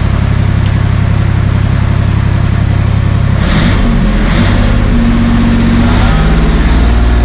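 Enclosed lifeboat's diesel engine running, heard from inside the cabin, its speed stepping up and down several times as the throttle lever is worked.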